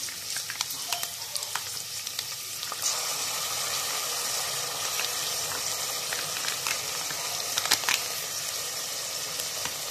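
Sliced onions sizzling in hot oil in an aluminium pressure cooker, with a few light clicks of the metal spoon against the pot. About three seconds in, the sizzle grows louder and stays so as ginger-garlic paste goes into the pan.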